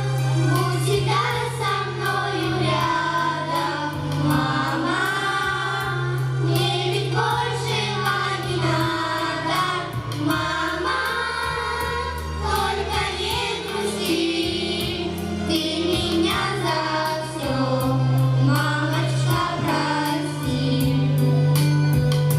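Children's vocal ensemble singing a song together into handheld microphones, over instrumental accompaniment with sustained bass notes.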